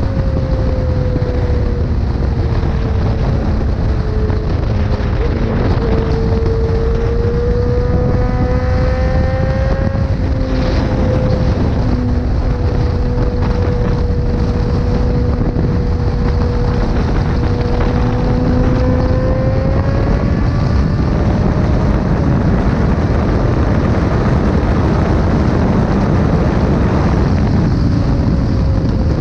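Motorcycle engine running at a steady road speed, its note drifting slightly up and down, under heavy wind rush on the microphone.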